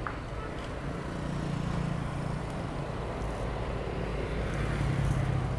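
Steady low rumble of vehicle noise with a faint hum that swells slightly twice.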